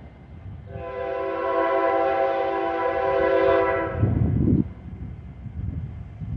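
Air horn (a K5L) on a GE CW44AC freight locomotive sounding one long chord of several steady notes for about three seconds as the train approaches, cutting off near the middle. A brief low rumble follows about four seconds in.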